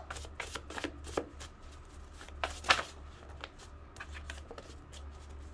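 A deck of tarot or oracle cards being shuffled by hand: irregular soft flicks and slaps of cards, one louder snap about two and a half seconds in, over a steady low hum.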